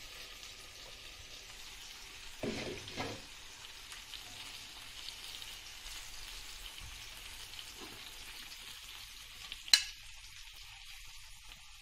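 Chicken pieces sizzling in oil in an uncovered frying pan as they are lifted out with a fork, a steady high hiss. Two dull knocks come a few seconds in, and a single sharp clink near the end.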